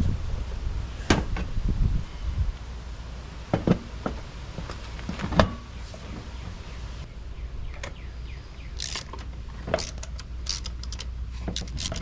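Hand tools and metal parts knocking and clinking as an ATV front axle and hub are put back together: a few separate knocks in the first half, then a run of quick high clicks near the end.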